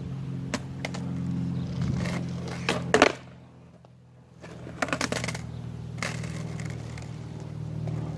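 Skateboard wheels rolling on pavement, then the tail popping with a sharp clack about three seconds in for a heelflip attempt; after a brief quiet moment the board comes down with a clatter of knocks and the wheels roll on. The attempt does not land cleanly.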